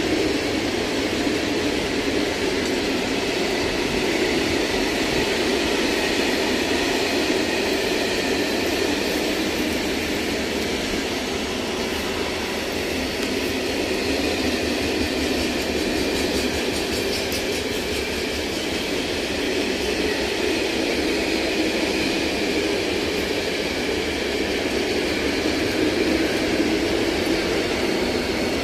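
Freight train of open coal wagons rolling past, a steady noise of wheels on rail that stays even throughout.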